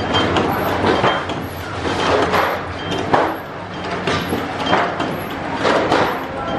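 Stainless-steel biscuit-forming machine running, with a steady hum and repeated metal clanks and knocks as it works the dough.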